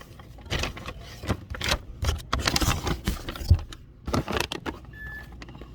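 Irregular clicks, taps and rustling of objects being handled and rummaged through, with a short beep about five seconds in.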